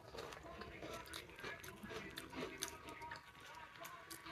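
Close-up chewing with the mouth closed: a string of small crunches and wet clicks from a mouthful of rice and fried gaina bori (crisp lentil-paste fritters).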